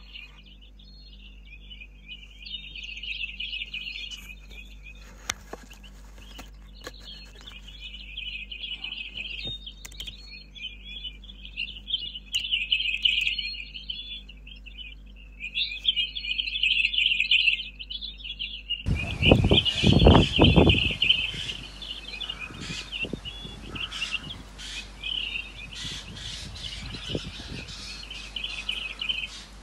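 Eurasian jay fledgling calling over and over, in bouts of a second or two. About two-thirds of the way through, a loud low rumble lasts a couple of seconds.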